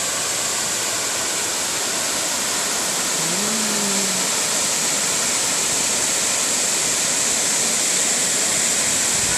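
Pongour waterfall's steady rush of falling water, full of hiss, with the falls running heavy after a day of rain. About three seconds in, a brief low tone rises and then holds for about a second.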